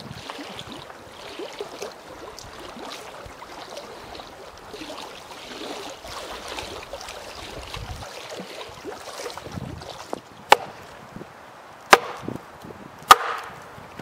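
Soft background of wind and lapping lake water, then three sharp chops of a hatchet splitting firewood on a wooden chopping block, about a second or so apart, the last the loudest.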